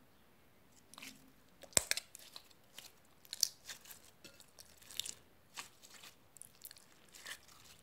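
Freezer-chilled slime being squeezed and pulled apart by hand, giving irregular sticky crackles and pops, with one sharp snap a little under two seconds in.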